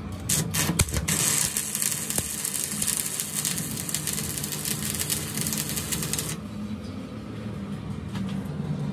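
Stick arc welding on a crankshaft main journal in a lathe, building up the worn journal with weld metal: a few sharp clicks, then a steady crackling hiss of the arc for about five seconds that stops about six seconds in. A low steady hum runs underneath.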